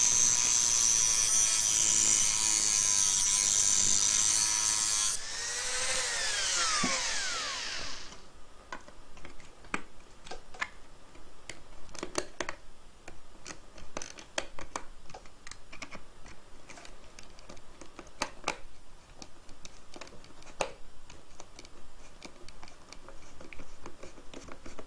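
Rotary tool with a cutting disc running at high speed, cutting a slot into a safety screw's head. About five seconds in it is switched off and whines down over a few seconds. Then come scattered small clicks and scrapes of hand work on the screw.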